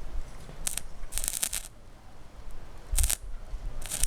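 Battery-powered stick-welding arc crackling and hissing in short bursts as the rod strikes and breaks the arc: about four bursts, the longest around half a second.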